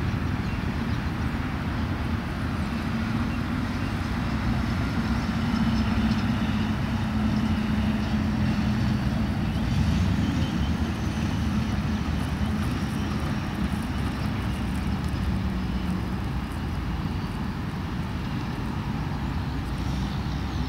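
A steady low engine rumble, with a humming tone that rises and falls a little about halfway through, over constant noise.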